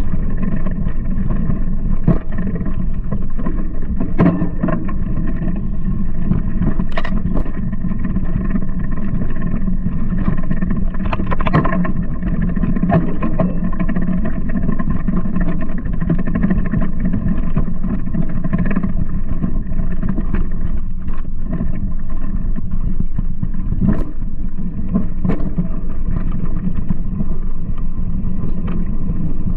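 Steady low rumble of a mountain bike riding a rough dirt trail, picked up by a camera mounted on the handlebar, with scattered sharp knocks from bumps in the trail.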